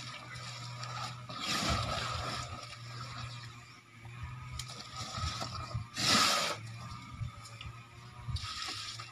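An elephant blowing air through its trunk: short breathy hissing bursts, one about two seconds in and a louder one about six seconds in, over a steady low hum.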